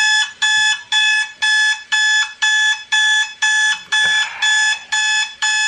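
Electronic alarm clock beeping relentlessly, about two identical high-pitched beeps a second, played back from an online alarm-clock video.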